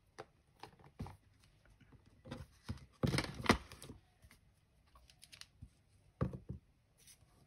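Crafting supplies handled on a tabletop while a stamp is picked out of its set: scattered light taps and clicks, with a longer rustle of paper or plastic about three seconds in, the loudest part.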